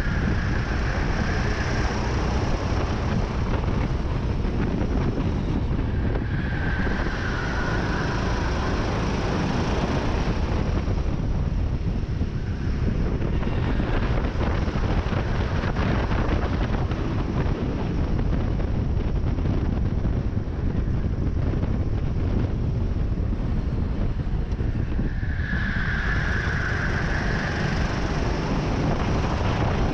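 Racing kart engine running hard from the onboard position, with wind buffeting the microphone and other karts close by. A brighter, higher tone swells for a couple of seconds near the start, about seven seconds in, and again near the end.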